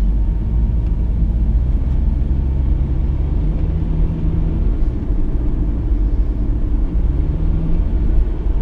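A car driving along a road, heard from inside the cabin: a steady low rumble of road and engine noise.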